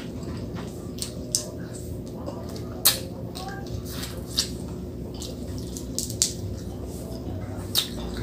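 Close-up eating sounds of fried frog eaten by hand: wet lip smacks and chewing clicks, a handful of sharp ones scattered through, the loudest about three seconds in. A steady low hum runs underneath.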